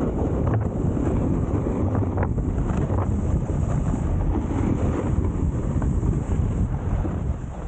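Wind rushing over the camera microphone while skiing downhill, with the skis scraping on packed snow now and then.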